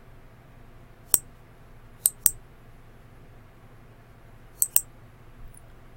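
Computer mouse clicking: a single click about a second in, then two quick double clicks, one about two seconds in and one between four and five seconds, over a faint steady low hum.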